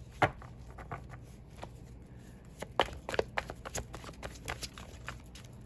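Tarot cards being shuffled by hand: scattered, irregular card snaps and clicks, the sharpest about a quarter of a second in, with a cluster near the three-second mark.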